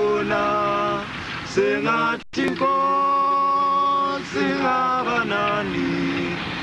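A group of men singing an unaccompanied struggle song in harmony, with long held chords that change every second or two. The sound cuts out for an instant about two seconds in.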